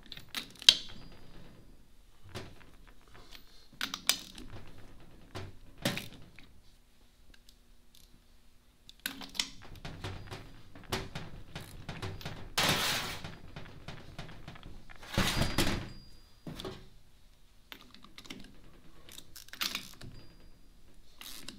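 Hand ratchet and socket breaking loose nylon-insert lock nuts on an aluminium transmission case: irregular metallic clicks and clinks of the tool and nuts, with two longer, louder noises a little past the middle.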